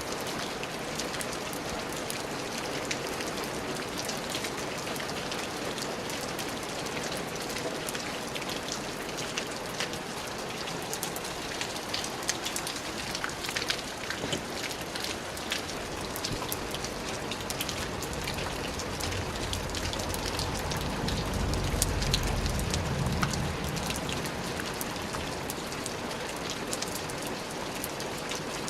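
Steady rain falling, a constant hiss dotted with many sharp individual drop hits. A low rumble swells and fades about twenty seconds in.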